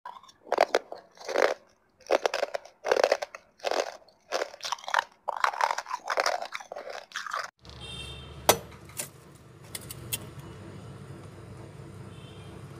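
Mouthfuls of freezer frost being bitten and chewed close to the microphone: a run of loud, separate crunches in quick groups. About two-thirds of the way through they stop and give way to a steady low hum with a few sharp clicks.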